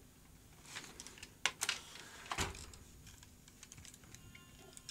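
Scattered light clicks and knocks of hands handling equipment on a workbench, with one heavier knock about two and a half seconds in.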